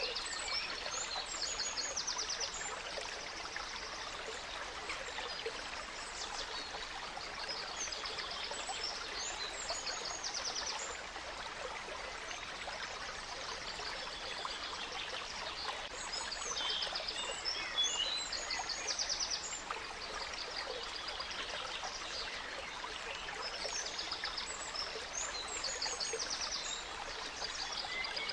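Gentle stream flowing steadily, with songbirds singing in repeated bursts of quick chirps and fast trills.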